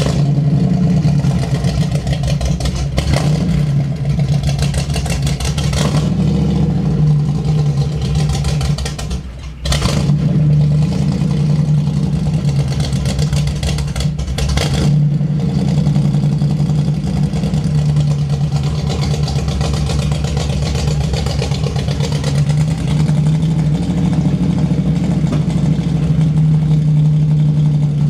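Old Ford van's engine running steadily just after starting, with a brief dip in level about nine seconds in.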